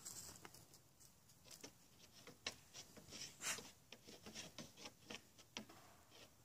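Faint, irregular taps and scuffs of Nigerian dwarf goats' hooves on a wooden teeter-totter board as the goats shift their footing, the loudest scrape about three and a half seconds in.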